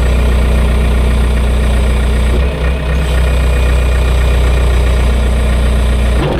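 Engine of a yellow loader-type machine running steadily, heard from inside its cab, its low drone briefly dipping and shifting about two and a half seconds in.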